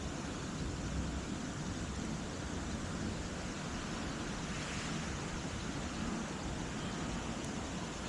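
Steady rushing noise with an uneven low rumble, typical of wind on the microphone.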